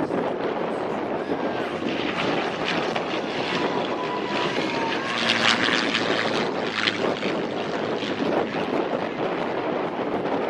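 Propeller airplane engine running steadily, a dense even drone with no clear rise or fall.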